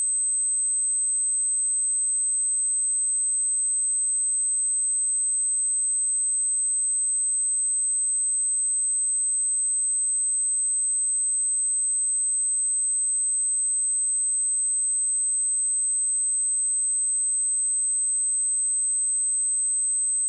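A steady, high-pitched 8208 Hz sine-wave test tone, one pure pitch held at a constant level.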